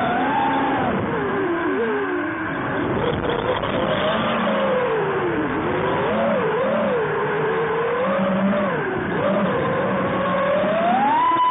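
Electric motors and propellers of a QAV250 racing quadcopter whining, the pitch rising and falling continually with the throttle, then climbing to a higher, held whine near the end.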